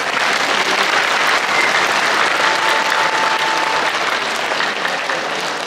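Audience applauding, the clapping swelling in the first second and tapering off near the end.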